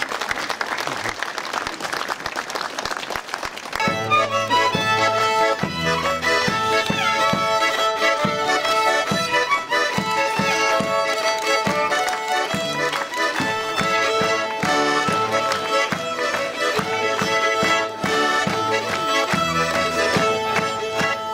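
Applause for about four seconds, then lively instrumental folk music starts and plays on with a steady beat.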